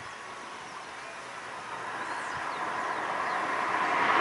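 A road vehicle approaching along the road, its noise growing steadily louder. Faint bird chirps sound in the first half.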